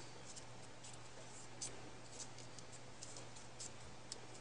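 Faint rustling and small ticks of folded paper origami units being handled and slid onto one another, a few soft scrapes a second or so apart, over a steady low hum.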